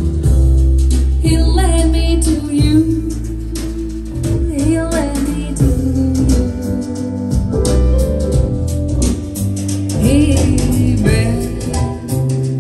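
A song with a singing voice, guitar and strong deep bass, played back through KEF LS50 Meta bookshelf speakers with a subwoofer.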